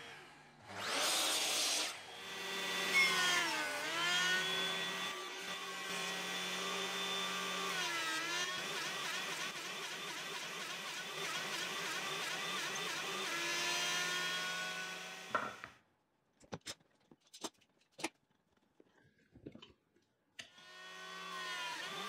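A short miter-saw cut through a cedar board. Then a benchtop thickness planer's motor runs with a high whine, its pitch dipping twice as the board feeds through and the cutterhead takes load. It stops, a few knocks of handling follow, and the planer starts up again near the end.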